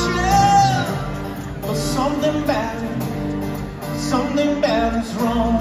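Live band music: strummed acoustic guitars over bass and drums, with voices singing without clear words.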